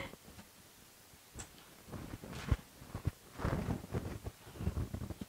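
Clothes and packaging being handled in an opened cardboard parcel: irregular soft rustling as T-shirts are pulled out of the box, with a couple of brief knocks.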